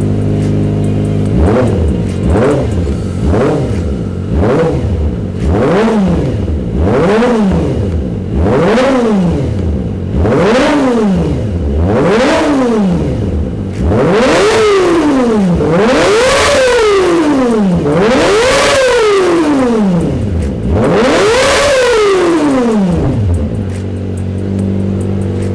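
Kawasaki Ninja ZX-25R inline-four engine breathing through an Austin Racing V3 exhaust with all baffles removed, blipped from idle: a run of short quick revs, then several longer, higher revs, settling back to idle near the end. The note is sharp and raspy, with popping as the revs drop.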